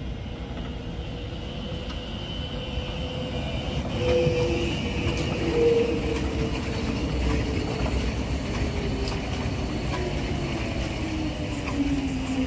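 Electric tram passing close by: rumble of its wheels on the rails under a motor whine that slides slowly down in pitch, loudest about four and six seconds in.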